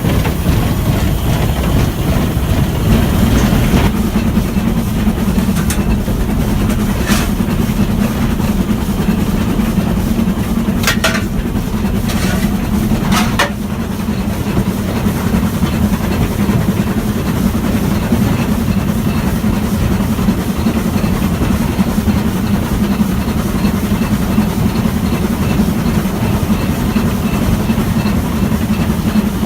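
Stanier 8F 2-8-0 steam locomotive running, a loud steady rumble with a handful of sharp clanks around the middle.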